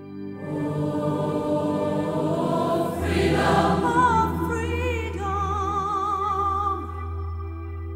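Background choral music: voices singing over held chords, with a deep drone coming in about three seconds in and a high line with wide vibrato above it from about four seconds in.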